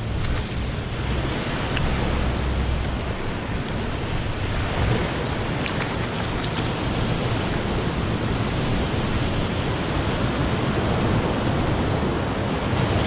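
Surf washing over shallow rocks at the water's edge: a steady rush of breaking waves and foaming water.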